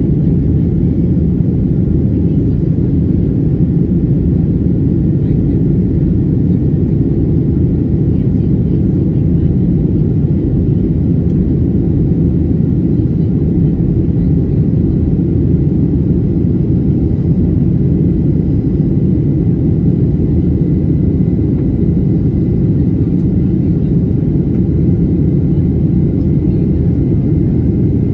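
Steady low roar of engine and airflow noise inside the cabin of a Boeing 737-800 in flight, with a faint high whine held over it.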